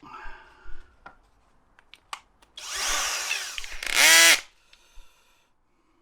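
Black and Decker power drill run in two short bursts: about a second of drilling, then a louder half-second spin whose pitch rises and falls. It is drilling a small hole to release a VW T4 ignition lock cylinder. A few light clicks and handling knocks come before it.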